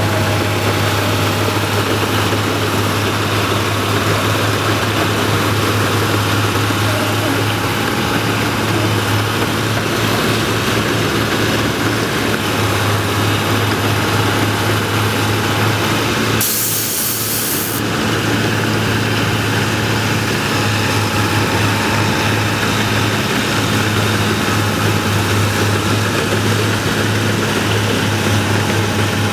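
Rice combine harvester's engine running steadily with a low drone, with a brief hiss a little past halfway.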